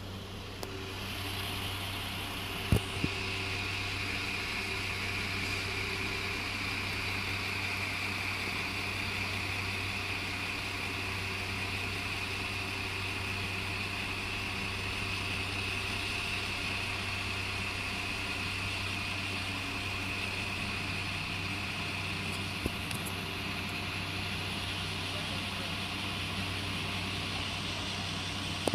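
Class 172 diesel multiple unit's underfloor diesel engines running steadily at the platform: a constant low hum with a high whine over it. Two sharp clicks come about three seconds in.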